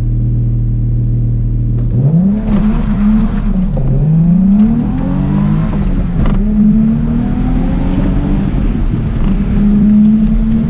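Toyota Chaser JZX100's 1JZ inline-six engine heard from inside the cabin, holding a steady note, then about two seconds in pulling away and revving up and down repeatedly through the gears.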